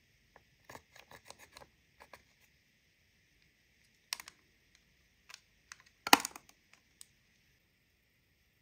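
A plastic spatula scraping and clicking against the pans of a plastic eyeshadow palette and the palette being handled: a quick run of short clicks early on, then scattered ticks and scrapes, with the loudest clatter about six seconds in.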